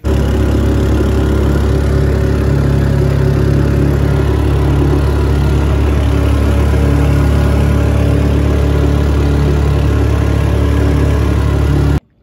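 A boat's motor running loudly and steadily, heard from on board while underway. It cuts off suddenly near the end.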